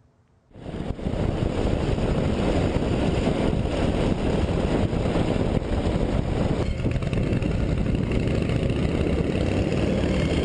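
1956 Harley-Davidson Panhead's 74 cubic inch V-twin, fitted with an Andrews J cam, running steadily. It comes in suddenly about half a second in and stays loud.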